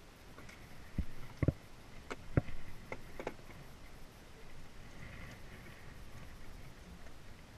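Several sharp knocks and clicks between about one and three seconds in, from fishing rods and gear being handled and set down against a small boat's hull. After that only a faint steady background remains.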